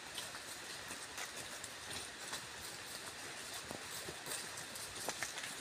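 Footsteps of several people crunching and scuffing on dry leaf litter as they walk along a forest trail, as scattered short crunches over a steady background hiss.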